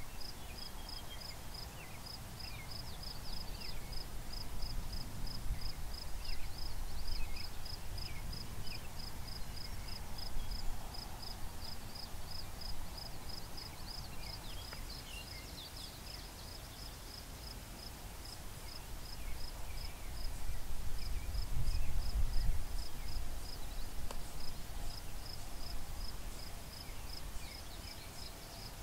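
Outdoor insect chorus: an insect chirping high and steadily at an even rhythm of about two chirps a second, with faint scattered bird calls. A low rumble swells twice.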